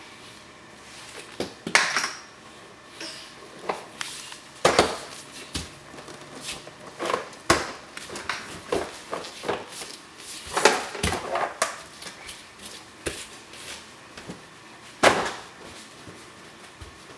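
Irregular knocks and clatters of hard plastic toys being handled and bumped by a toddler, with about five sharper knocks spread through.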